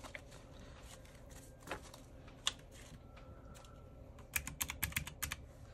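Keys of a pink desk calculator with round typewriter-style keys clicking: a few single presses, then a quick run of about eight to ten presses about four seconds in, as a counted sum of bills is entered.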